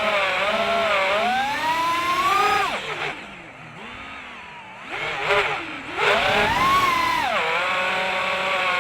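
A small, high-revving engine, its pitch rising and falling with the throttle. It drops back to a low, quiet speed about three seconds in and is revved up again about three seconds later.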